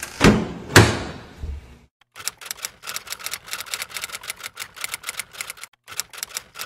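A door sound effect: two sharp knocks about a quarter and three-quarters of a second in, each trailing off. Then comes a typewriter sound effect, a quick run of key clacks lasting about four seconds, with a brief pause near the end.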